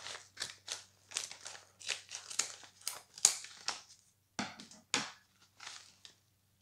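Scissors cutting open a paper envelope: a run of short, crisp snips and paper crinkling, two or three a second, with a brief pause about four seconds in.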